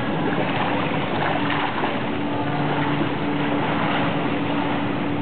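Water splashing from a swimmer's combat swim strokes in an indoor pool, over an even rush of pool-hall noise and a steady low hum.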